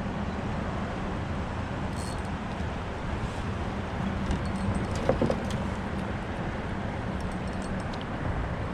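Steady outdoor wash of wind and river water with a faint low hum that comes and goes, and a few light clicks about halfway through.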